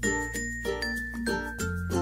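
Background music: plucked notes in a steady rhythm over a held bass note, with a high melody line stepping down in pitch.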